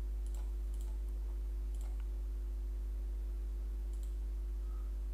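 A few computer mouse clicks, spread out, over a steady low electrical hum.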